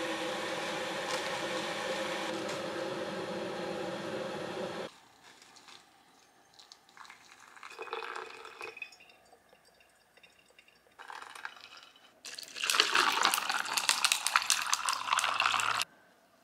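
Kitchen sounds of making pour-over coffee. A steady hum with even tones stops abruptly about five seconds in. About eight seconds in, hot water pours from a kettle into a paper filter in a plastic cone. Near the end comes the loudest part: liquid poured over ice in a plastic cup, a dense crackling and splashing lasting about three seconds.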